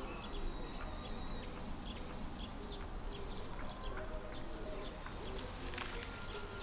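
Outdoor ambience: a continual chorus of short, high chirps, several a second, over a low background hum.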